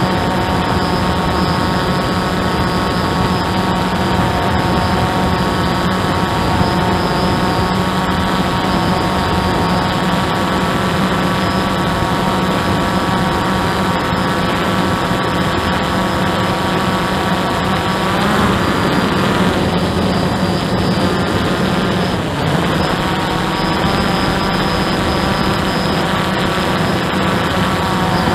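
Hubsan 109 quadcopter's motors and propellers whining steadily, heard from its onboard camera as a stack of even tones. The pitch shifts briefly about eighteen seconds in and again about twenty-two seconds in.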